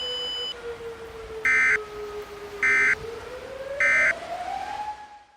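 Emergency Alert System end-of-message data bursts: three short, loud electronic squawks about a second apart. They sound over a single low tone that slowly sinks, then rises in pitch before fading out. A high steady tone cuts off about half a second in.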